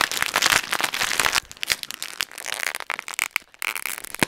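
Blue-and-silver foil biscuit wrapper crinkling as it is handled and squeezed, louder for the first second and a half, then softer, scattered crackles.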